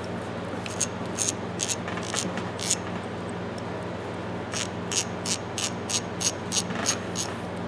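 An old 3/8-inch drive ratchet, freshly cleaned and greased, is worked back and forth, its pawl clicking over the gear teeth. It starts with a run of sharp clicks about two a second. After a short pause comes a faster run of about three a second.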